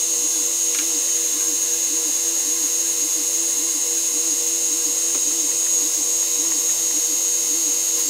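CNC mini mill spindle running a 1/8 inch end mill as it plunge bores a hole in aluminium plate, played back at four times speed. A steady high whine runs over a lower tone that pulses about one and a half times a second.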